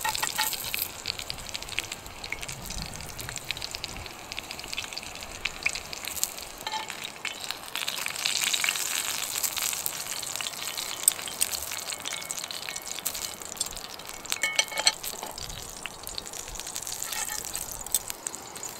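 Sausage fat sizzling and crackling in a hot frying pan over a small wood fire, with a few ringing metal clinks of a utensil or pan about three quarters of the way through.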